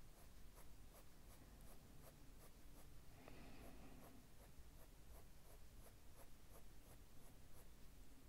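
Prismacolor Premier coloured pencil in Henna scratching faintly on paper in short, evenly repeated shading strokes, slightly louder for a moment about three seconds in.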